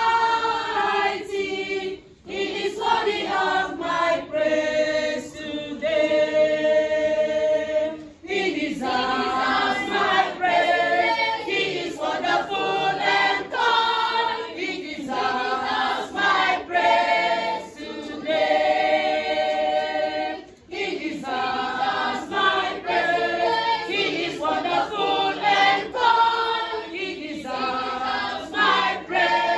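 A church choir of children and women singing together unaccompanied, in phrases with long held notes and short breaks for breath between them.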